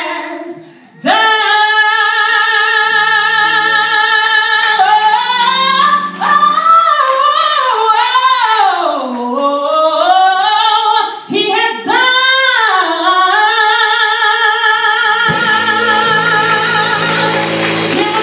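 A woman sings a gospel solo through a microphone, at first unaccompanied. She holds long notes with vibrato and sweeps up and down in runs. Near the end, instrumental accompaniment comes in under her voice.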